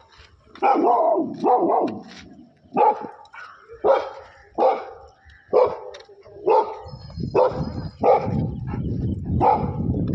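Labrador cross-breed dog barking repeatedly, about a dozen sharp barks roughly one a second, aggressive barking at grazing water buffalo. A steady low rumble comes in underneath about seven seconds in.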